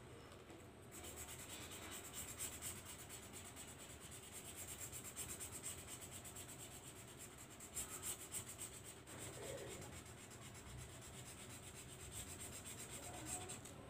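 Felt-tip marker colouring on paper, a faint scratchy rub of quick back-and-forth strokes that starts about a second in.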